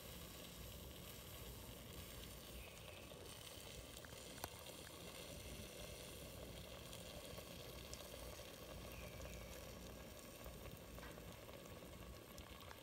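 Chicken sizzling faintly in a pot as it stews, a low, even hiss.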